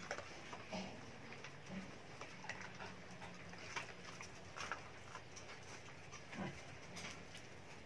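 Small dogs eating rice from a shallow metal tray: faint, irregular clicks and licks as mouths and tongues work over the tray.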